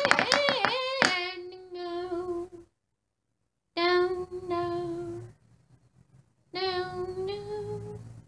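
A child's voice singing. The first second warbles in quickly wavering pitch, then come three long held notes with short silent breaks between them.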